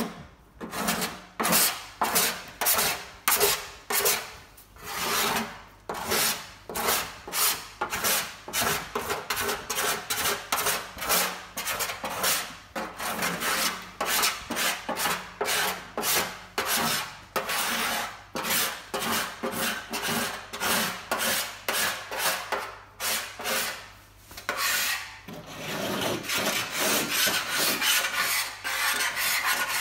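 Hand scraper sliding across the metal of a VW Beetle engine lid, lifting chemically softened paint and body filler in short strokes, about two a second. Near the end the scraping turns longer and steadier.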